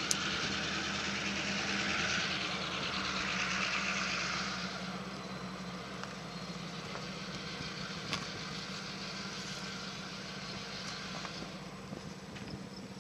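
An engine idling with a steady low hum, along with a hiss that eases off after about five seconds.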